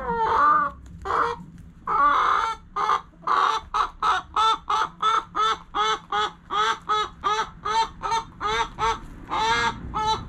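A chicken cackling: a long run of short, pitched squawks, a few slow ones first, then quickening to about three a second, with a longer call near the end.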